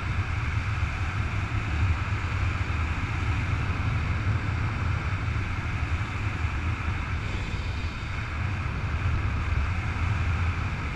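Steady wind noise from the airflow of a paraglider in flight rushing over the camera's microphone: a deep low rumble under a broad rushing hiss.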